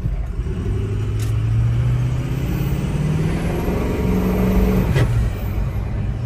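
Ford 6.0 Powerstroke V8 turbodiesel in a 2005 F350 accelerating under throttle, its note climbing steadily for about four seconds and then dropping about five seconds in, as the automatic transmission shifts up. Heard from inside the cab with the rear window open; the exhaust has a catalytic converter but no muffler.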